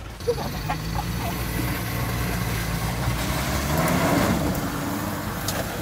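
Off-road 4x4 SUV engine running steadily, then revving up with a rising note about three and a half seconds in, together with a rush of noise, as the vehicle strains on the obstacle.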